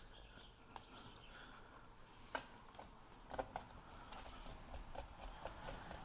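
Faint, scattered clicks and taps of a laptop being reassembled by hand, with a small cluster of clicks about three and a half seconds in.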